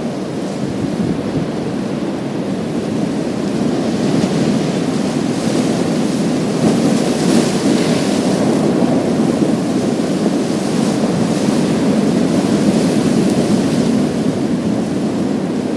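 Waves breaking on a pebble beach: a steady surf rumble, with a louder hissing wash over the stones building a few seconds in and easing near the end.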